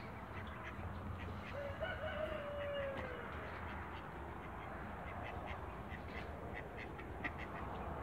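A duck giving one drawn-out call that falls slowly in pitch, about two seconds in, over a steady low rumble, with faint short ticks in the second half.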